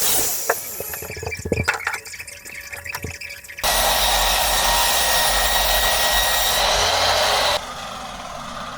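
A few knocks and taps, then a power tool runs steadily for about four seconds and cuts off abruptly.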